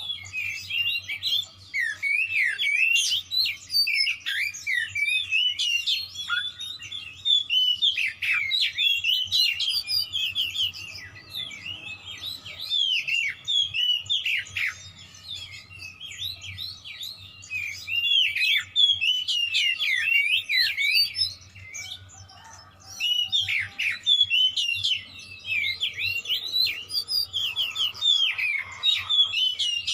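Oriental magpie-robin singing a fast, varied song of rapid whistles and chirps, full of mimicked phrases, in near-continuous bursts with a couple of brief pauses: the vigorous, aggressive song of a bird in fighting mood.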